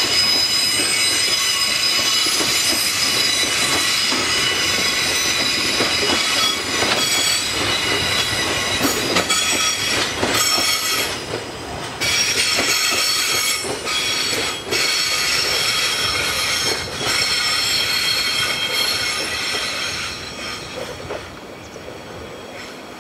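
Freight container wagons' wheels squealing on a curve, several high steady tones over the clatter of the wheels on the rails. The squeal breaks off briefly a few times and fades near the end as the train moves away.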